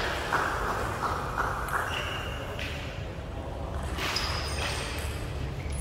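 Light clicks of a table tennis ball, about three a second at first, struck by bats and bouncing on the table, over the low steady rumble of a large hall. A couple of brief high squeaks come about two and four seconds in.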